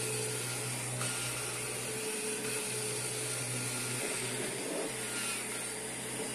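Kirby G5 upright vacuum cleaner running steadily at full power, with a constant motor hum and fan rush.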